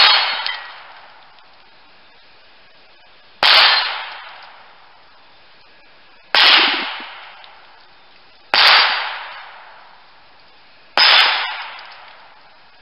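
High Standard .22 rimfire fired five times at a slow, even pace, about two to three seconds apart. Each sharp crack trails off with about a second of ringing tail as steel targets are knocked down.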